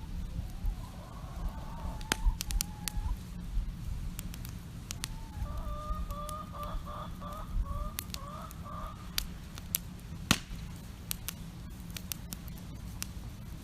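Free-roaming hens calling: a drawn-out call, then a run of about seven short clucks. A campfire crackles with sharp pops throughout.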